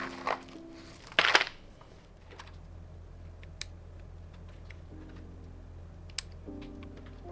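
Keyboard parts being handled: a short loud rustle about a second in, then a few isolated sharp plastic clicks. Soft background music notes at the start and again near the end.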